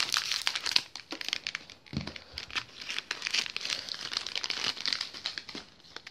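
HP colour ink cartridge's packaging crinkling and tearing as it is cut and pulled open by hand, in a dense run of irregular crackles that eases off near the end. A soft handling bump comes about two seconds in.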